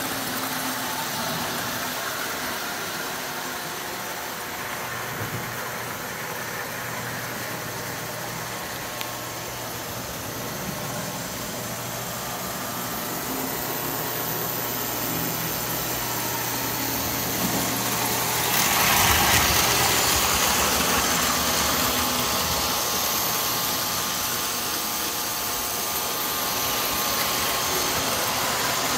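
Several Lionel postwar O-gauge electric toy trains running together on three-rail tinplate track: a steady hum of motors and rumbling wheels, growing louder about two-thirds of the way through.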